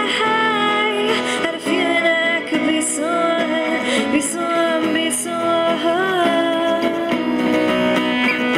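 A woman singing a slow pop melody into a microphone, with vibrato on a held note about six seconds in, accompanied by a strummed steel-string acoustic guitar.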